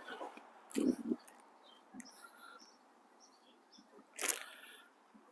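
Quiet handling sounds as a bicycle seat post, still in its protective paper and plastic wrap, is worked into the frame's seat tube: a short knock about a second in and a louder rustling scrape a little after four seconds.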